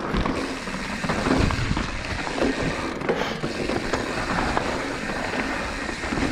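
Mountain bike rolling down rocky, rooty dirt singletrack: tyres crunching over dirt, stones and roots, with a continuous clatter of rapid small knocks and rattles from the bike over the bumps.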